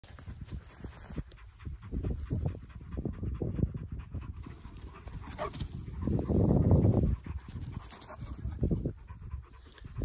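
Akbash dog panting close by, a string of quick, rhythmic breaths. About six seconds in there is a louder rush of noise lasting about a second.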